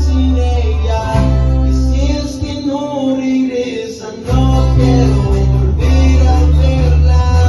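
A band playing an instrumental passage of a song, with a guitar melody over strummed guitar and a heavy bass line. The bass drops out for about two seconds in the middle and comes back in.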